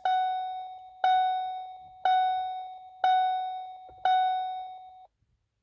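2012 Ford Focus instrument-cluster chime dinging five times, about once a second, each ding fading away, as the ignition is switched on, alerting the driver to a warning.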